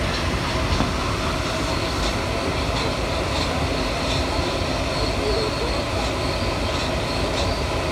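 MP73 rubber-tyred metro train running at steady speed: an even, continuous rumble and hiss of the running gear with faint light ticks on top.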